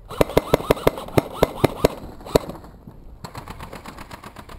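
Airsoft gun firing a quick string of about ten sharp shots, roughly four a second, over the first two and a half seconds, followed by fainter, faster, evenly spaced clicks.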